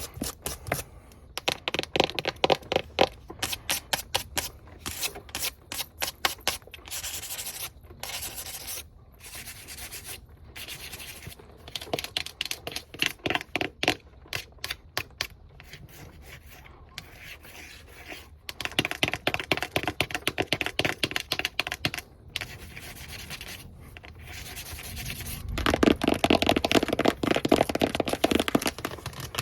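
Long fingernails tapping and scratching fast and hard on hard surfaces, the camera and tabletop. Quick runs of taps alternate with stretches of rapid scratching and rubbing, loudest near the end.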